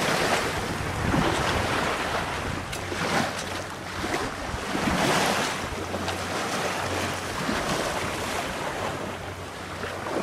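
Wind buffeting the microphone and waves washing along the hull of a small sailing yacht running under spinnaker in a choppy sea, an even rush that swells and eases every second or two.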